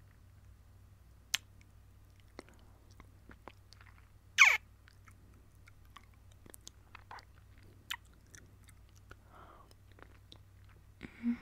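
Kissing sounds: scattered lip smacks and clicks, the loudest about four and a half seconds in.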